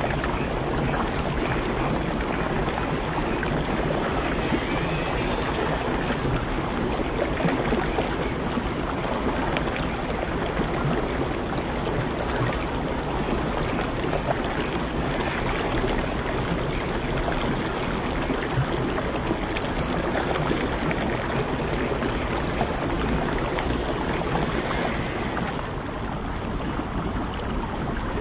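Stream water running steadily over rocks. Near the end it becomes slightly quieter and calmer.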